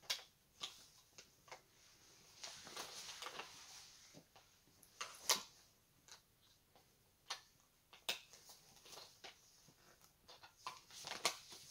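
Soft rustling and scattered irregular clicks from a thin fabric cover being handled and pulled into place over a children's electronic prayer mat.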